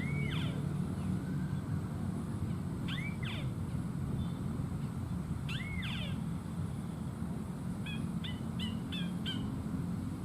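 A bird calling: three drawn-out calls that rise and fall, a few seconds apart, then a quick run of short notes near the end, over a steady low rumble.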